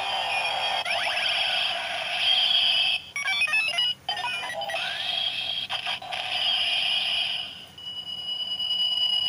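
DX Decade Driver toy belt playing its electronic sound effects and music through its small speaker, with a quick run of beeps about three seconds in and a steady high tone near the end.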